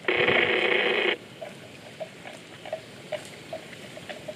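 A loud, harsh sound lasting about a second at the start, beginning and ending abruptly, then water buffalo cropping grass as they graze: small tearing crunches about two to three times a second.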